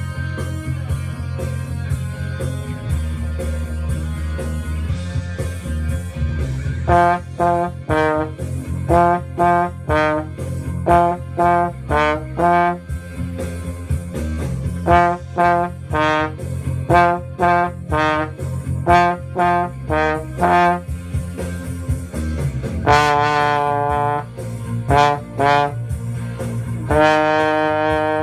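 Trombone playing along with a backing track: after about six seconds of accompaniment alone it comes in with short, rhythmic notes, mostly in pairs, and near the end holds two longer notes.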